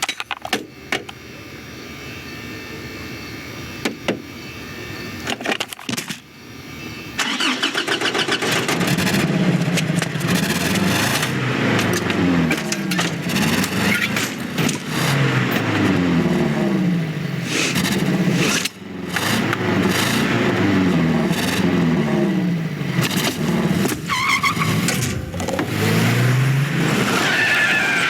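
Film sound effect of a small delivery truck's engine: it runs low and slowly gets louder, then about seven seconds in it jumps louder and revs up and down over and over as the truck drives off and shifts gears.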